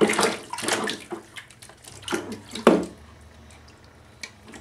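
Water splashing in a small plastic baby bathtub as a baby slaps and paddles the water with her hands and floating toys. The splashes come irregularly, heaviest near the start and a little before three seconds in.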